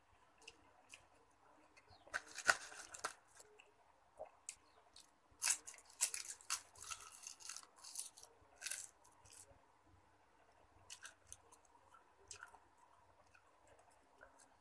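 A person chewing cooked cabbage and carrot close to the microphone: clusters of crisp crunching clicks, the densest about two seconds in and from about five to nine seconds, thinning out near the end.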